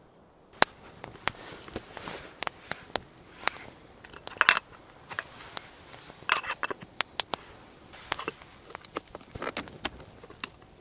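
Small wood campfire crackling, with sharp irregular pops several times a second and a few louder clusters of snaps.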